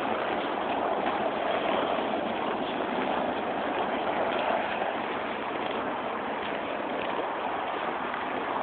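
Steady rushing noise of a large river flowing below a bridge, even and unbroken.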